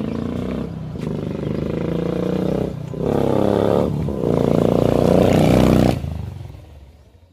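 Royal Enfield Bullet Classic 350's single-cylinder engine through a slash-cut aftermarket exhaust, loud as the bike pulls away. It rises in pitch in steps, with short dips about one, three and four seconds in, then drops sharply about six seconds in and fades.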